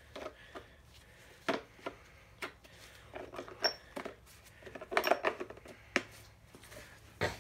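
Irregular metallic clinks and knocks of bolts and tools being handled on a workbench, about eight sharp strikes spread unevenly, with a small cluster about five seconds in.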